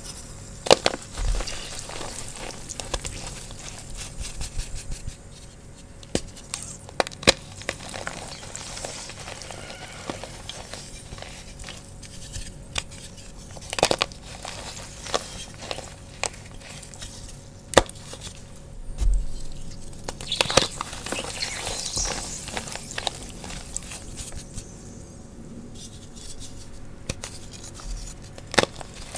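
Fresh blocks of Sports Chalk gym chalk crunched and snapped apart by hand, with sharp cracks every few seconds and crumbly crackling in between.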